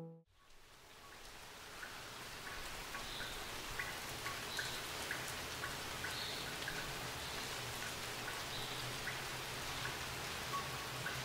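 Outdoor ambience fading in over the first couple of seconds: a steady hiss with a low hum beneath it and faint, short high chirps recurring every second or so.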